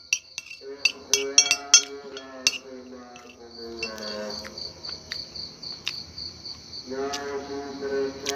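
A metal spoon scraping and clinking on a ceramic plate, with several sharp clicks. Under it, crickets chirp steadily, and a voice from a mosque loudspeaker chants long held notes.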